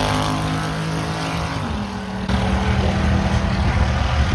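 A Chevrolet S-10 Blazer's engine running as it drives past and away, its note slowly falling. About two seconds in, the sound changes to a steadier, lower engine sound from farther down the strip.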